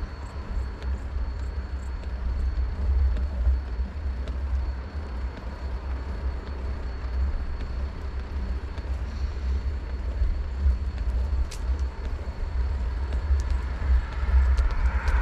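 Low, fluttering wind rumble on an action camera's unshielded microphone while cycling uphill on a mountain road. Near the end a motor vehicle approaches, its tyre and engine noise rising.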